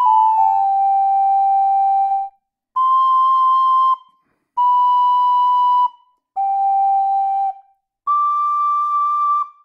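Sampled small duct flute from Orchestral Tools' Abacus library (recorder-type) playing a slow line of single held notes with a pure, whistle-like tone. A note stepping down and held to about two seconds in is followed by four separate notes of just over a second each, with short gaps between them, the last one highest.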